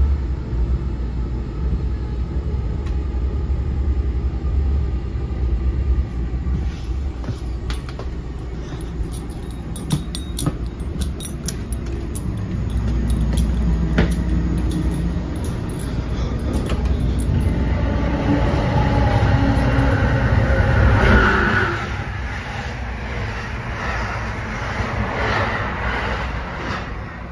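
Interior noise of an NJ Transit Multilevel rail coach under way: a steady low rumble of the train running on the track, with a run of sharp clicks and rattles in the middle. About three-quarters of the way in, a louder, higher-pitched stretch sets in for a few seconds and then drops off suddenly, leaving a quieter rumble.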